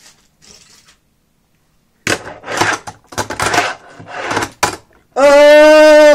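Fingerboard (Tech Deck) wheels and deck clattering on a fingerboard ramp in a quick series of clacks and rolls as a trick is done. A very loud, long held "Ohhh!" cry of excitement follows about five seconds in, at steady pitch.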